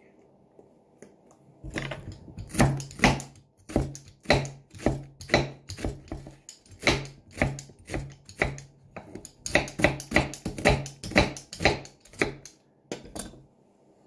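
Kitchen knife slicing through a halved onion and striking a wooden cutting board, steady strokes about twice a second, starting about two seconds in and stopping shortly before the end.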